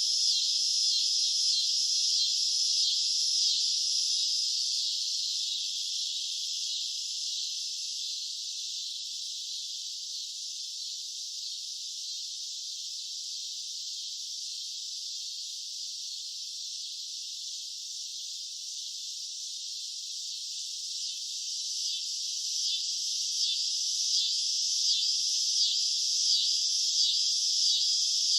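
Cicadas chirping in a dense, high buzzing chorus that fades somewhat in the middle and swells again, pulsing a few times a second, near the end.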